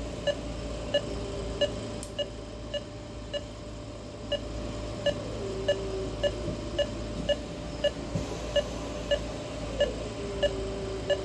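An anesthesia monitor beeps steadily at one pitch, about one and a half short beeps a second, which is the pulse tone tracking the anesthetized dog's heartbeat.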